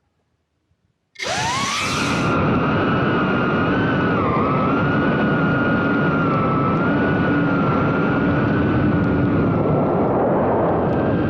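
BetaFPV Pavo 30 quadcopter's brushless motors spinning up suddenly about a second in, the whine rising quickly and then holding steady, with small rises and dips in pitch as the throttle changes in flight.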